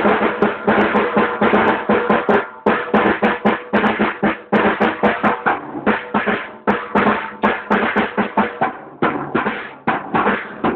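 A drum kit played loud and fast, with dense strokes following one another several times a second and no real pause.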